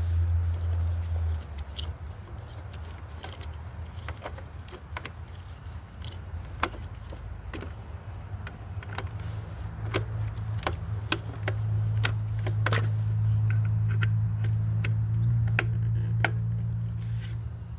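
Scattered sharp clicks and taps of a screwdriver, screws and plastic housing parts as an electric string trimmer is taken apart by hand, over a low steady hum that swells near the start and again from about halfway through.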